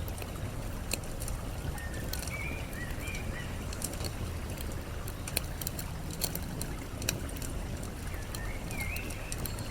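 Campfire crackling with frequent sharp pops, over a steady low rush of flowing water. A bird gives a short run of chirps about two seconds in and again near the end.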